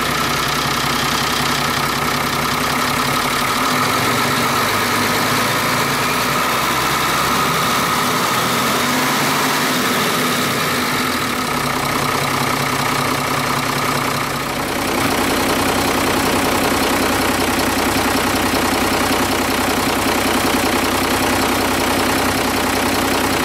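Nissan Diesel Condor truck's 6.9-litre naturally aspirated diesel engine idling steadily; its tone shifts about fifteen seconds in.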